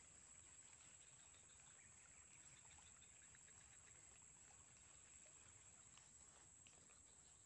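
Near silence: faint outdoor ambience with a steady high-pitched hum of insects.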